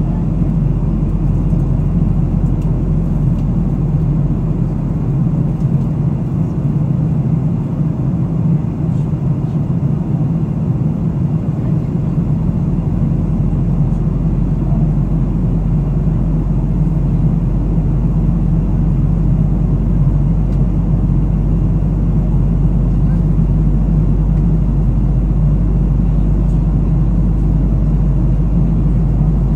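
Airliner cabin noise in flight: the steady, even drone of engines and airflow heard inside the passenger cabin.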